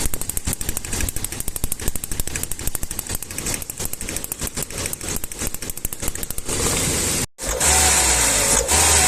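Toyota gasoline engine running with a fast, loud, irregular tapping clatter, the 'tecleo' or pinging that the mechanic traces to a current leak in the spark plug wires. About seven seconds in the sound cuts out briefly, then the engine idles with an uneven low pulse, a sign of the poor combustion.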